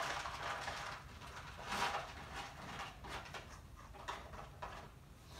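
Cats eating dry kibble from bowls close by: irregular crunching and small clicks of food against the bowls, loudest about two seconds in.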